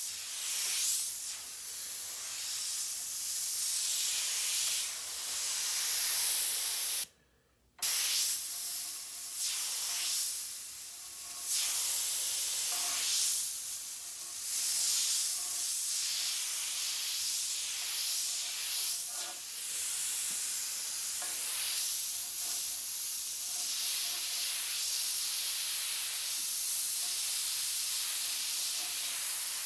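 Airbrush spraying paint: a hiss of air and paint that swells and eases in short passes as the trigger is worked. It stops completely for under a second about seven seconds in.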